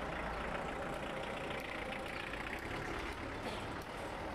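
A motor vehicle engine running steadily, a low rumble with a hum, among general outdoor noise.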